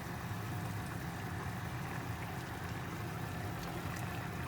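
Curry broth boiling in a pot, a steady bubbling hiss with faint pops, over a steady low hum.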